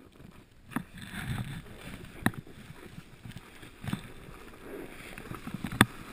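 Snowboard sliding and scraping over hard-packed snow on a descent, with four sharp knocks, the loudest near the end.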